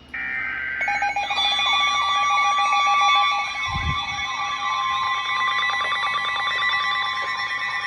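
NOAA Weather Radio alert: a short digital data burst, then from about a second in several electronic alarm tones sound together, a steady warning tone with pulsing and warbling tones over it. This signals an incoming warning, here a flash flood warning.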